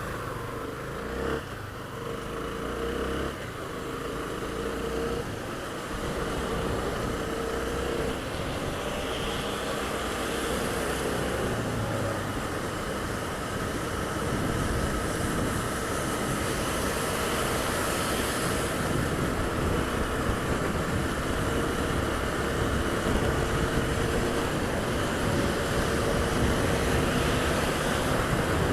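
A Honda Twister 250's single-cylinder engine running as the motorcycle is ridden at speed on a wet road, with a steady rushing noise under the engine note. The noise grows gradually louder.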